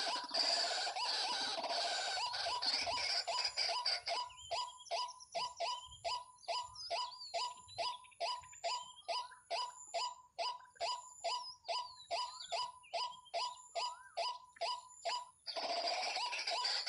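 Waterhen calling: a dense, rapid chattering call, then a long run of short repeated notes, about three a second, each dropping slightly in pitch, before the fast chatter starts again near the end.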